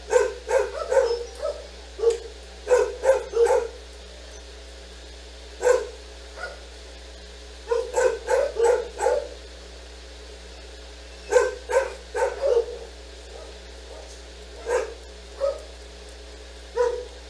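A dog barking in quick runs of three to five short barks, with pauses of a second or more between the runs.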